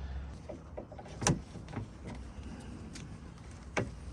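Light clicks and taps of hands and tools working on parts inside a car door panel, with two sharper clicks, one about a second in and one near the end.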